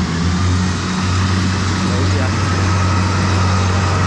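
Rice combine harvester's diesel engine running steadily in the field, a constant loud drone.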